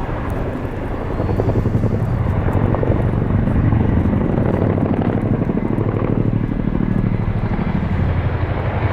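Chinook tandem-rotor helicopter flying overhead, its rotors making a fast, steady chopping beat that grows louder about a second in.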